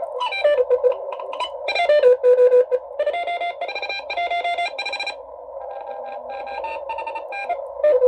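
Morse code (CW) tones from a Xiegu G90 HF transceiver, keyed on and off in dots and dashes over a narrow band of receiver hiss on the 40-meter band. The tones slide down in pitch and change note as the tuning knob is turned across the signals, and they sound harsh and distorted.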